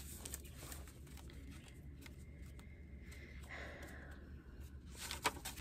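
Soft rustling of small paper question cards being handled and sorted, with a few light clicks near the end, over a faint steady room hum.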